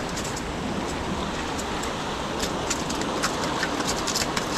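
Steady rush of surf breaking and washing over the jetty rocks, with a few light clicks.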